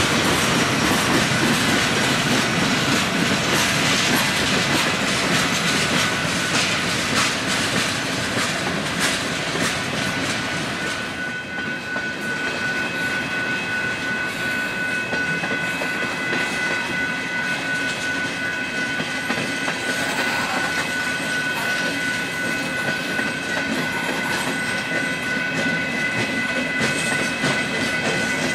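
Union Pacific freight train passing close by. Diesel locomotives go by in the first part, then tank cars and covered hoppers roll past with wheels clacking over the rail joints. From about a third of the way in, a steady high-pitched tone rides over the rolling noise.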